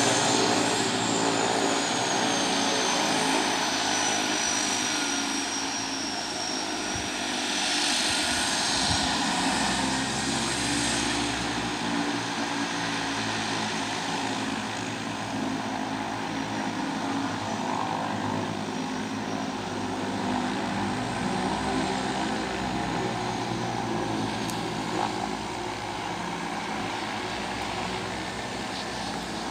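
De Havilland Canada DHC-6 Twin Otter's twin turboprop engines running as the plane taxis, a steady propeller drone with a high turbine whine that slowly falls in pitch over the first several seconds.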